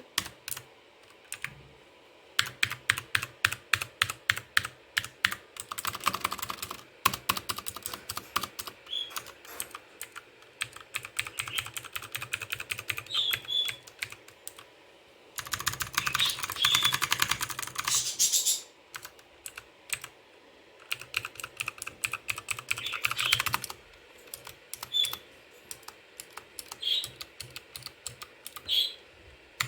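Typing on a T-Dagger T-TGK321-BL keyboard: single key clicks at an even pace, broken by bursts of fast continuous typing, three times.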